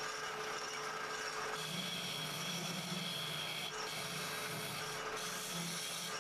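Wood lathe running with a turning tool cutting a spinning maple blank: a steady motor whine under the scraping hiss of the tool on the wood, the cutting noise heavier from about a second and a half in until near the end.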